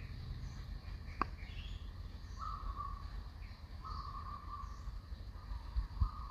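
Outdoor ambience with a steady low rumble, small scattered bird chirps, and three buzzy calls about a second long each. There is a single sharp click about a second in.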